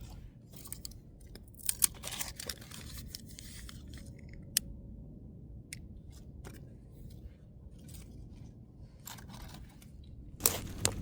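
Scattered clicks, rustles and light knocks of things being handled, over a steady low rumble. There are a couple of sharper clicks about two seconds in, and a louder clatter near the end.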